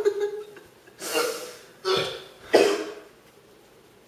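A man coughing three times, short harsh coughs about a second apart, his throat burning from eating an extremely hot chili sauce.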